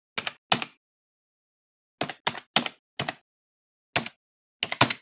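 Computer keyboard keystrokes as a typing sound effect, about a dozen separate clicks at an irregular pace, some in quick pairs, with pauses of up to a second between clusters.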